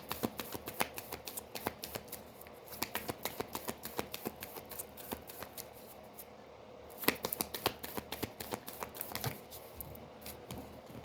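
Tarot cards being shuffled by hand: a rapid run of light card clicks that thins out toward the end.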